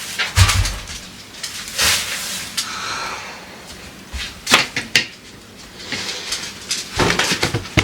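Kitchen handling sounds while putting things away: a series of knocks and bumps of cupboard doors and items being moved and set down, with a short rustle in the middle.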